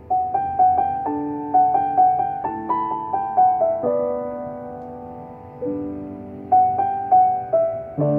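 C. Bechstein grand piano being played: a slow tune of single notes over chords, held and dying away for a moment about halfway through before the playing resumes.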